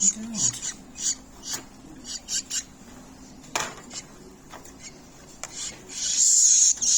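Baby birds begging for food with raspy, hissing calls in short repeated bursts, a longer, louder burst near the end, and one sharp click about halfway through.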